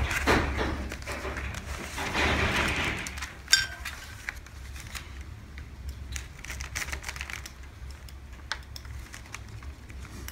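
Paper and muslin rustling and sliding on a cutting table, a sharp tap about three and a half seconds in, then a run of light clicks as a tracing wheel is rolled across muslin to transfer its lines onto pattern paper.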